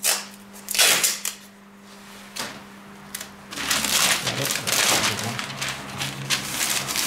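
Masking paper crinkling and rustling as it is handled and smoothed over the scooter: a short burst about a second in, then a long stretch of continuous crackling in the second half.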